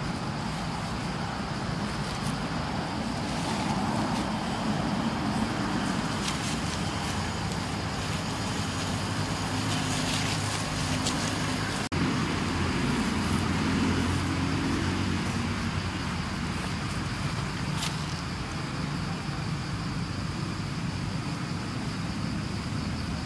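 Steady low rumble of motor traffic, with engine hum that shifts in pitch, cut off sharply about halfway through and then picking up again.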